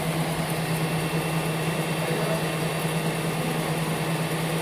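Ice cream stick two-end milling machine running with sticks feeding through its end-milling blades: a steady, even mechanical hum with a constant low tone and no distinct knocks.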